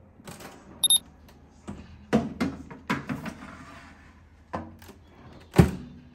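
A metal baking tray is slid into a Balmuda countertop oven with clatter and knocks, and the oven door shuts with a thump near the end, the loudest sound. There is a short beep about a second in.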